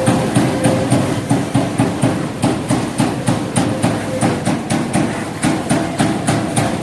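Hydraulic CNC turret punch press punching sheet metal in rapid succession, a steady run of sharp hits at about three a second.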